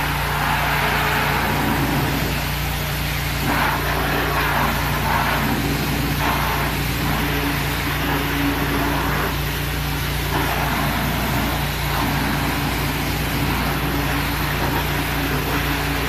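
A motor running steadily with a constant low hum, with irregular patches of hissing noise over it.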